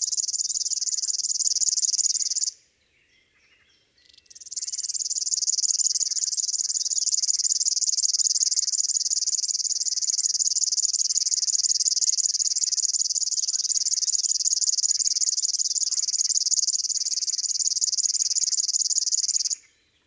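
River warbler singing its long, even, high-pitched reel. It breaks off about two and a half seconds in, pauses for under two seconds, then starts again and carries on until just before the end.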